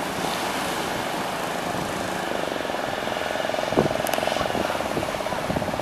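A fishing boat's outboard motor running steadily, its fast-pulsing note growing stronger about two seconds in, over the wash of breaking surf.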